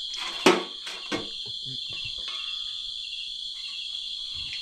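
Steady, high-pitched chorus of night insects, with a sharp knock about half a second in and a smaller knock just after a second.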